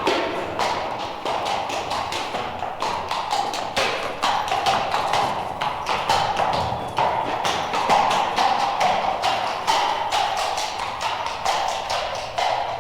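A rapid, irregular run of clattering knocks and taps, several a second, over a steady hiss, from a sound-effects record.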